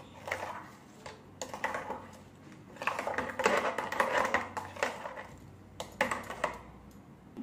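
A spoon tapping and scraping against the inside of a stainless steel mixer-grinder jar while stirring blended lassi, in irregular clusters of quick clinks.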